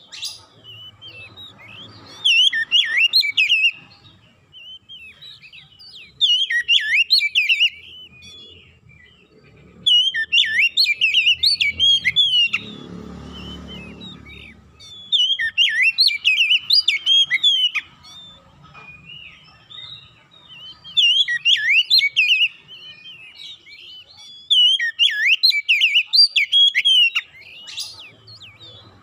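Oriental magpie-robin singing: bursts of fast, varied whistled phrases, each lasting one to two seconds and repeating about every four seconds. A faint low rumble comes in about halfway through.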